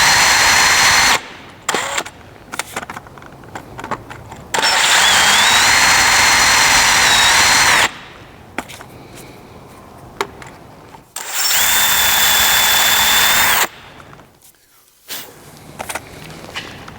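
Power drill with a 3/8-inch bit boring a half-inch-deep hole for a threaded insert, run in three bursts of a few seconds each with short pauses and small clicks between them.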